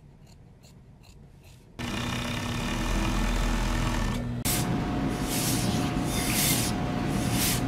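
Fabric shears snipping faintly, about three cuts a second. Then, about two seconds in, an industrial overlock sewing machine starts running with a steady hum. Past the middle it gives way to a steam iron pressing a seam, with repeated bursts of hissing steam.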